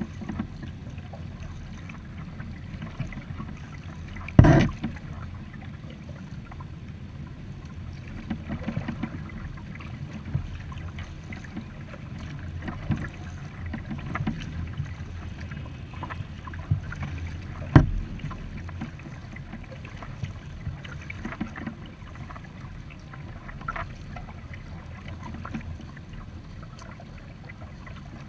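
Kayak being paddled: paddle strokes and water moving along the hull over a steady low rumble. Two sharp thumps stand out, one a few seconds in and one past the middle.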